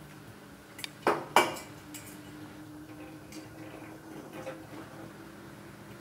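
Kitchenware clatter: two sharp clanks of glass or metal a little after a second in, then a few lighter knocks, over a faint steady hum.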